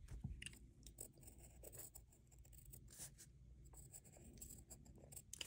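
Faint scratching of a pencil on paper as small strokes are drawn, with light clicks and taps among them.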